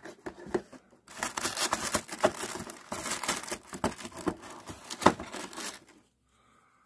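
Cardboard and plastic packaging of a Hot Wheels advent calendar crinkling and tearing as a toy is worked out of its compartment by hand, with sharp crackles throughout; it stops about six seconds in.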